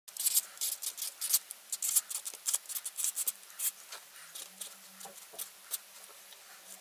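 Marker pen nib scratching across card in quick short strokes as handwriting is written, busy for the first three and a half seconds, then sparser as smaller marks are drawn.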